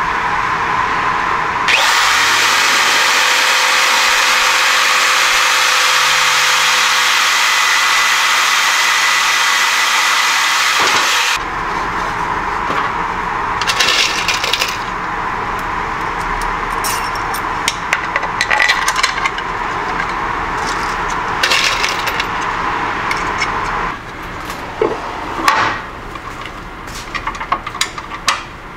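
Electric hand drill running steadily for about nine seconds, then cutting off sharply. After that come clicks, rattles and clatter from small screws and parts being handled on a workbench.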